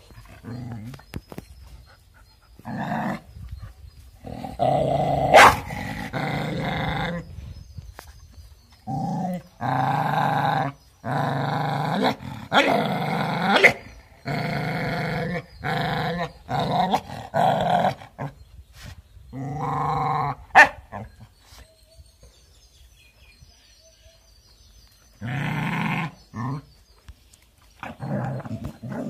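A dog growling at its own reflection in a mirror, in a series of long drawn-out growls of about a second each with short gaps between, and a quieter stretch before a last growl near the end. Two sharp clicks cut through the growling.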